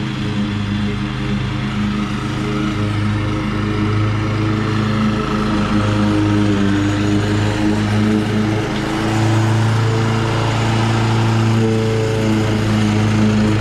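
Petrol engine of a Toro Commercial 21-inch walk-behind mower running steadily, its pitch shifting slightly a few times.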